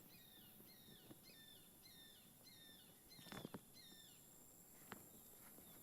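Faint bird song: a string of short chirps, each falling in pitch, repeated about twice a second for the first four seconds or so, with a brief faint knock about three and a half seconds in.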